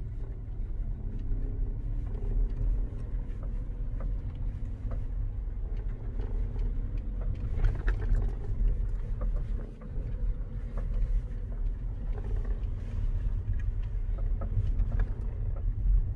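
Skoda Octavia A5 on the move: a steady low rumble with irregular knocks and clicks scattered throughout, the knocking fault the owner is trying to capture.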